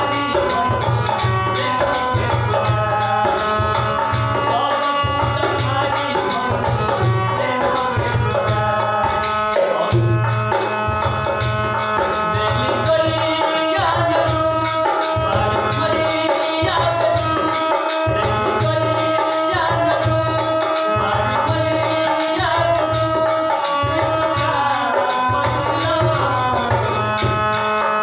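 Hindi devotional bhajan sung by a man's voice over a harmonium's held chords, with a steady drum beat and small hand cymbals keeping time.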